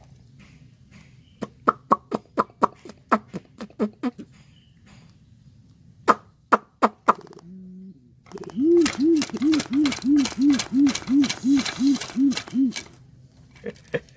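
Sulawesi imperial pigeon (pergam) calling: a quick run of about a dozen deep, evenly spaced hoots, about three a second, in the second half. Before that come two groups of sharp clicks.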